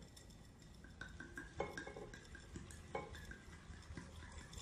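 Red wine pouring faintly from a glass bottle into a glass pitcher full of crabs, with a few short light clicks and gurgles, clearest about one and a half and three seconds in.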